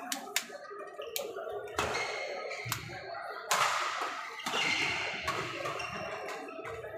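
Badminton rackets striking a shuttlecock in a doubles rally, with sharp hits roughly a second apart. Short squeaks of court shoes on the wooden floor come between the hits.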